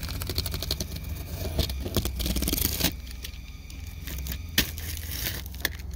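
A cardboard shipping box being opened: packing tape crackling and tearing away, with cardboard scraping. The sound is loudest a little past two seconds in, with a few sharp clicks later.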